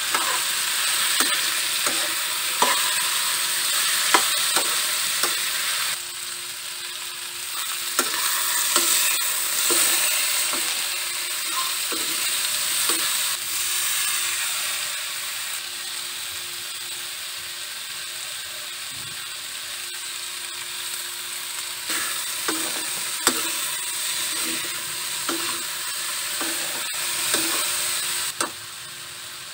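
Strips of potato, carrot and bell pepper sizzling in a metal wok while a metal spoon stirs them, clicking and scraping against the pan. The sizzle drops in loudness about six seconds in and again near the end.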